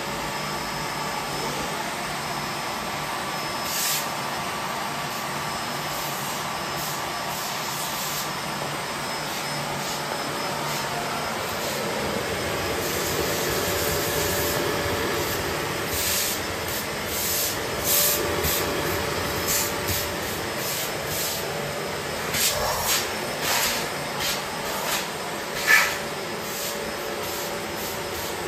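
Bosch BGS21X320 bagless canister vacuum cleaner running steadily at full suction, a cat grooming brush held to its hose nozzle to pull the fur out. In the second half, short knocks and scrapes come as the brush is worked against the nozzle.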